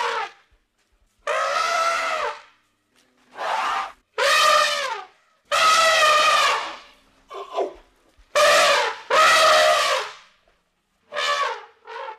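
Elephant trumpeting: a run of about nine separate calls, each lasting up to about a second, with short silent gaps between them.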